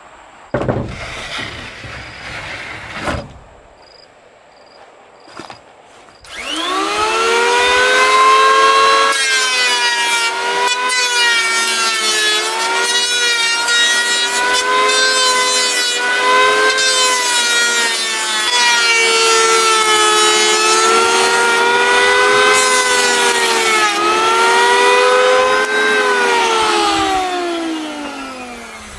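A few wooden knocks as boards are handled, then an electric hand planer starts about six seconds in with a rising whine and runs shaving the edge of a wooden board, its pitch wavering as it cuts. It winds down with a falling whine near the end.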